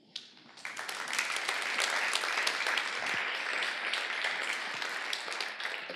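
Audience applauding: a dense patter of many hands clapping that builds within the first second and fades out near the end.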